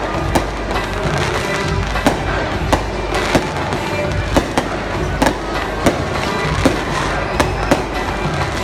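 Fireworks going off: about a dozen sharp, irregularly spaced bangs with crackling in between, over music playing continuously.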